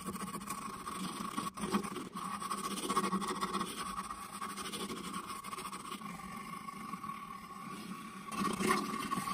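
Hand sanding between the slats of a cherry-wood vase: strips of sandpaper pulled back and forth across the wood in irregular scraping strokes, one louder stroke near the end, over a faint steady hum.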